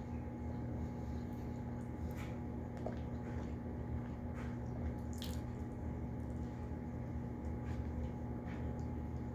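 A person eating a burrito: scattered soft wet, squishy mouth clicks of chewing over a steady low hum.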